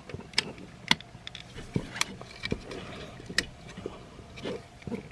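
Plastic parts of a transforming robot toy figure being handled, folded and pegged together, giving a few scattered sharp clicks and taps over soft handling rustle.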